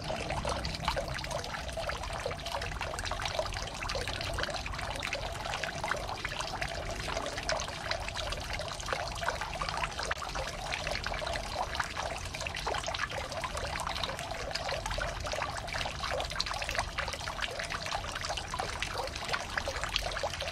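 Hot-spring water trickling and splashing steadily, with many small splashes.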